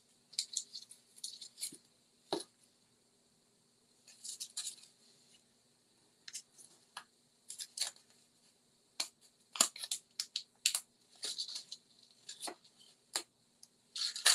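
Handling a roll of adhesive strip and small paper pieces: scattered light clicks, crinkles and rustles of paper and backing strip, with short quiet gaps between.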